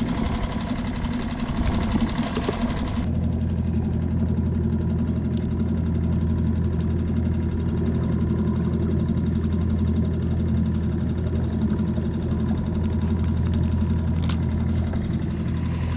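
Small outboard motor of a solo skiff running steadily at low, trolling speed, a constant low hum. A hiss over it drops away about three seconds in.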